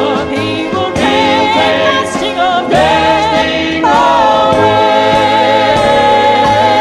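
Southern gospel vocal group singing in harmony. About four seconds in they settle onto one long held chord.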